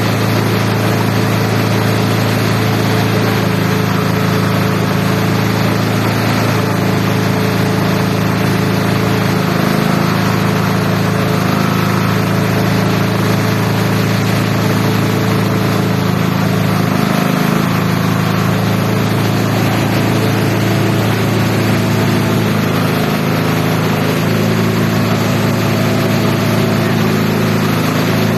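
Engine-driven multi-purpose chopper-shredder machine running steadily: a loud, constant mechanical drone.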